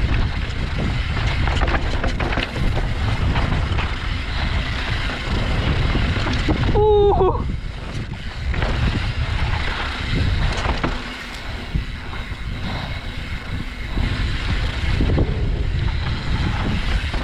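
Wind rushing over the microphone with the rumble of a YT Tues downhill mountain bike's tyres on a rough dirt trail at speed, with scattered knocks and rattles as it hits rocks and bumps.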